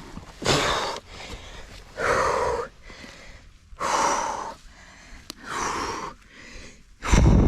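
A man gasping and breathing heavily in pain after a hard mountain-bike crash, in five separate ragged breaths spaced about a second and a half apart. The last breath, near the end, is the loudest and comes with a low rumble.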